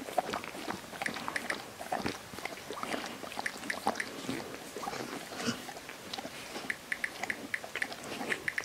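Husky–Malamute mother dog licking her newborn puppy: short, irregular licking and mouth clicks, several a second.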